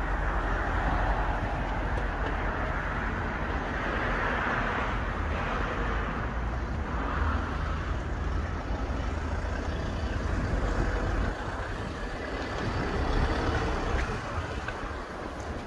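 Motor vehicles passing close by: a steady rush with a deep rumble that drops away about eleven seconds in.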